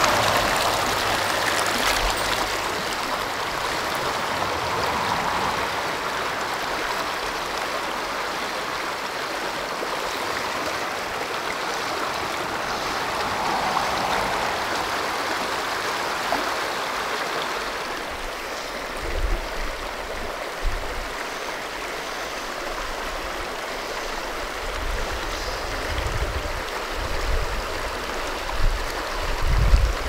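Shallow mountain creek running over rocks in a riffle: a steady rushing and gurgling of water. A few short low bumps come in over it in the second half.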